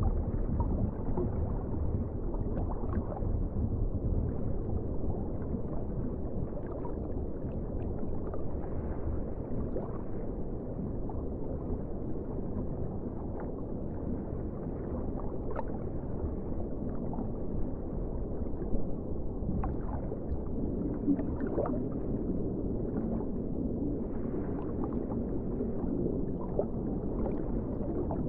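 Underwater ocean ambience: a steady, muffled low rumble and wash, dull with no high end, with scattered faint short pops or clicks now and then.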